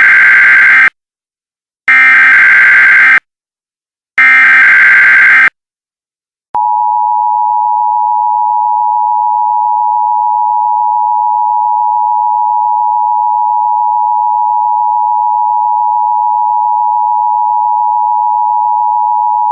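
Emergency Alert System broadcast tones: three bursts of SAME digital header data, each about a second long and a couple of seconds apart. After a short gap, about six and a half seconds in, the steady two-tone EAS attention signal starts and holds.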